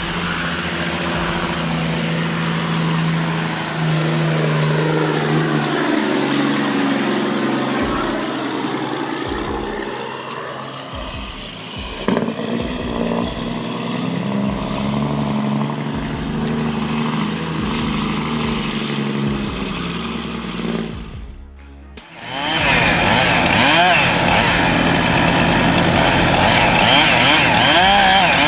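A heavy truck's diesel engine running, with a high whine that slowly falls in pitch. About 22 seconds in, after a brief drop, a chainsaw takes over, its engine revving up and down as it cuts wood.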